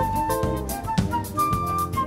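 Instrumental jazz with a Brazilian feel: a high lead melody of long held notes over bass and drum hits.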